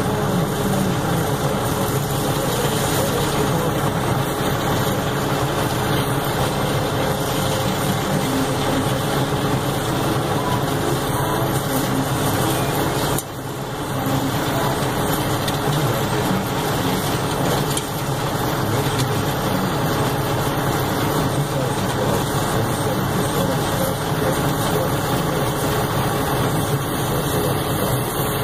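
Loader-mounted rotary snowblower running steadily under load, its heavy engine and blower throwing a tall plume of snow. The level dips briefly about halfway through.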